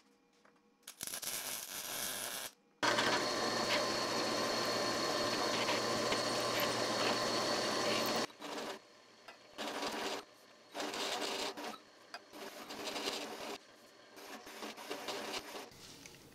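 Drill press running with its bit cutting through stacked steel plate: a steady noise with a low motor hum from about 3 s in, which cuts off near 8 s. A run of short bursts of drilling noise follows.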